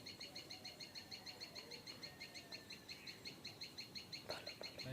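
Faint bird chirping: a steady, rapid run of short high chirps, about six a second.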